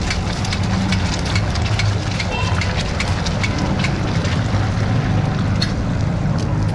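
An egg frying in a wide pan of deep hot oil, crackling and spitting all the way through, over a steady low rumble.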